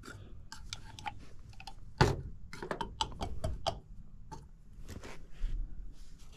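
Hand work on HVAC equipment: a scatter of small clicks and clinks, with one sharper knock about two seconds in.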